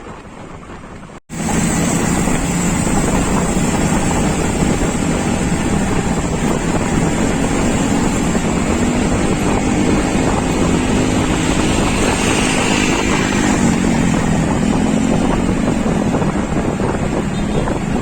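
Heavy wind buffeting the microphone, with a low, wavering engine hum beneath, starting abruptly about a second in.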